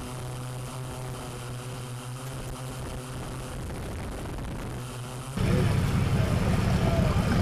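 Steady hum of a camera drone's propellers. About five seconds in, it gives way suddenly to the much louder engine of a modified off-road trial truck climbing a steep dirt bank.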